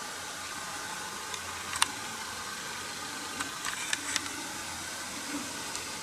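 Steady hiss of recording noise, with a few sharp clicks: one about two seconds in and a short cluster around four seconds.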